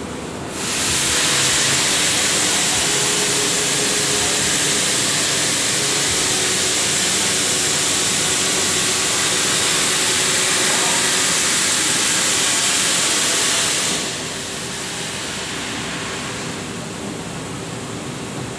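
100 A air plasma cutter's torch arc firing on a CNC plasma table: a loud, steady hiss starts about half a second in and cuts off about fourteen seconds in, leaving a quieter hiss and a faint steady machine hum.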